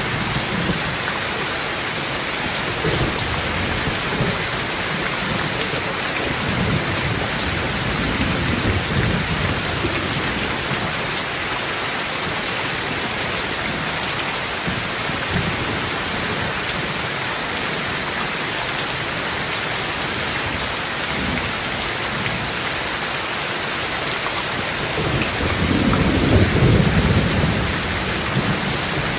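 Steady heavy rain with low rolling thunder coming and going, the loudest rumble about 26 seconds in.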